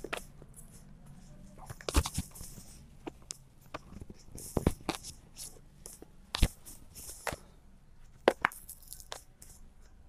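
Cardboard smartphone box being handled and worked open by hand: scattered crackles, scrapes and light taps, with a sharper click or knock every second or two.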